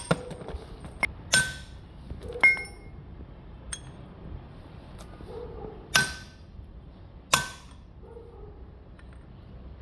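Metal tools and parts knocking together with sharp, ringing clinks at an uneven pace, five loud strikes and a couple of light taps.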